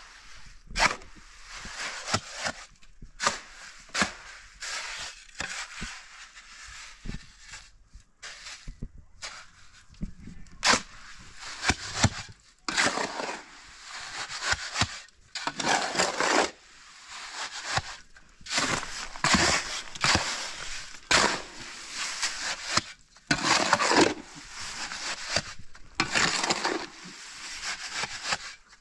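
An irregular run of sharp knocks and cracks from hard objects, with short scraping sounds between them, busier in the second half.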